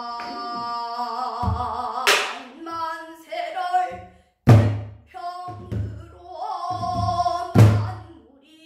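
A woman singing a Korean danga in Namdo sori style, holding long wavering notes, accompanied by a buk barrel drum. The drum is struck at intervals, with the loudest hits about two, four and a half, and seven and a half seconds in, and softer taps between them.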